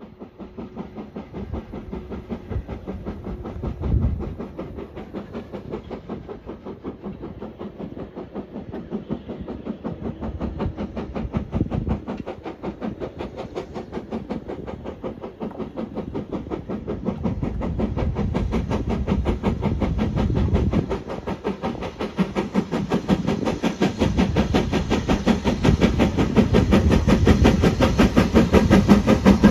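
BR Standard Class 4MT 2-6-4 tank steam locomotive hauling a passenger train, its exhaust beating in a quick steady rhythm that grows louder as it approaches.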